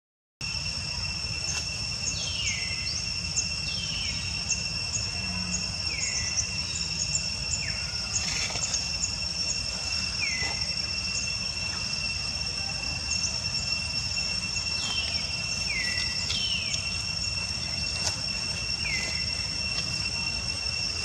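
Steady high-pitched drone of insects in vegetation. Over it, a short descending call repeats at irregular intervals of one to three seconds.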